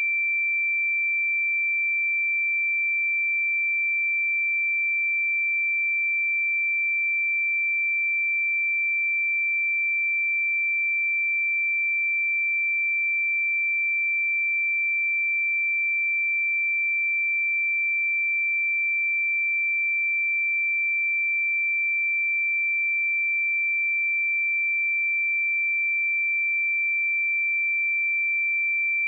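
A single pure 2346 Hz sine-wave test tone, a steady high-pitched whistle-like tone held at constant pitch and level, used to check speakers and headphones.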